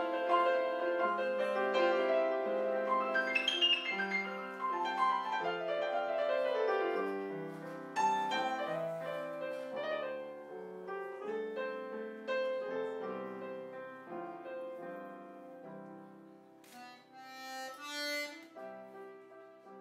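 Live piano music, with a quick descending run of notes about four to seven seconds in, growing steadily quieter toward the end.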